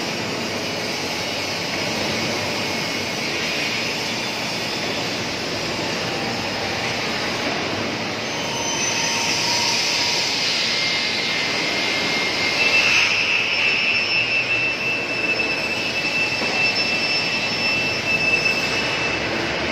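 Steady roar of machinery running in a large factory hall, with thin high whines coming and going from about halfway through.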